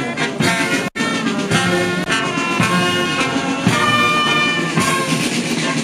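Military brass band playing, with held horn notes; the music drops out for an instant about a second in.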